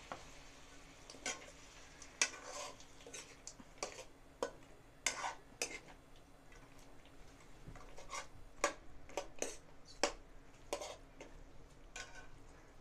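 Metal spatula scraping and clacking against a metal kadai as vegetables are stirred, in irregular strokes.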